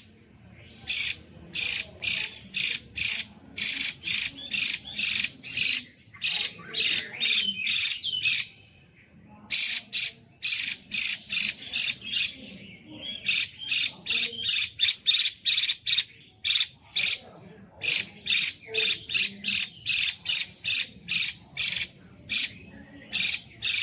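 Female Chinese hwamei (hwamei laughingthrush) calling loud and clear: rapid runs of short, sharp notes, about three or four a second, broken by brief pauses.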